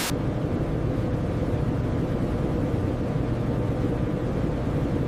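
Steady low mechanical drone of factory processing machinery, an even hum at constant loudness with no breaks.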